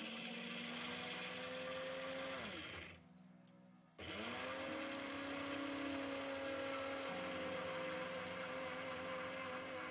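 Electric mixer grinder dry-grinding roasted peanuts, sesame seeds and coconut to a powder, run in two pulses. The motor whines up to speed, runs about two and a half seconds and winds down, then after a second's pause starts again and runs about six seconds before cutting off.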